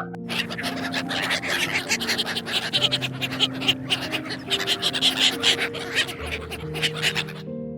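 Dense, rapid scratchy clicking from an animal, stopping near the end, over soft background music with held low notes.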